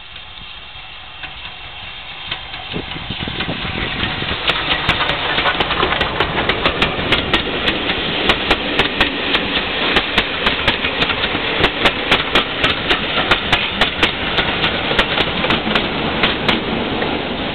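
SR U class steam locomotive 31806 and its train of coaches passing close by, getting louder over the first few seconds as it approaches. Then the wheels click in a quick, regular rhythm over the rail joints as the coaches roll past, stopping shortly before the end.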